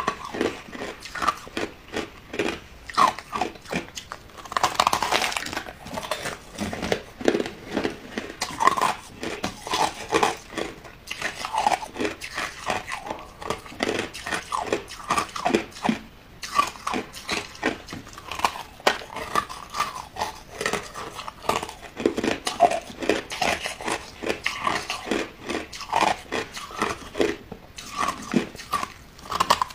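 Chunks of hard white ice being bitten and chewed: a continuous run of sharp, irregular crunching cracks, several a second.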